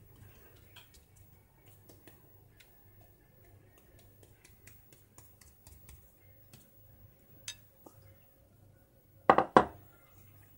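Faint scattered light clicks as a silicone pastry brush dabs egg wash over thin yufka sheets, then two loud sharp knocks of the glass bowl near the end.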